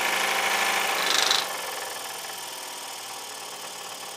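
DeWalt DW788 scroll saw running on its first power-up, working properly out of the box. It is louder with added hiss for about the first second and a half, then settles to a steady, quieter run.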